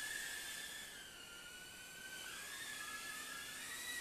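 Furibee F36 micro quadcopter's tiny motors and propellers whining at a high pitch in flight. The pitch dips after about a second, splits into two close tones as the motors change speed, and rises again near the end.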